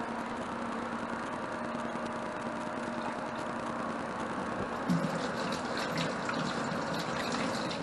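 Kitchen tap running into a stainless steel sink while gloved hands rinse something under the stream, over a steady background hum. Light clattering in the sink begins about five seconds in.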